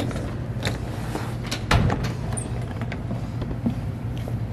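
Petmate Kennel Cab plastic pet carrier's wire door being unlatched and swung open: a few sharp clicks and rattles, the loudest a little under two seconds in, over a steady low hum.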